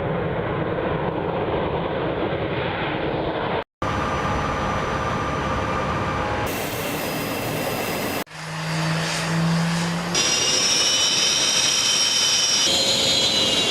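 Several short clips of fighter jet engines running loud, cut one after another. The last clip builds up and carries a high, steady turbine whine over the roar.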